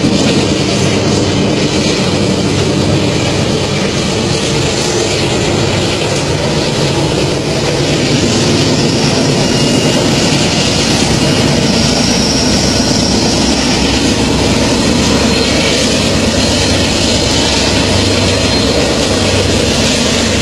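Several diesel freight locomotives at the head of a long container train running together, a loud steady engine drone with heavy noise that barely changes.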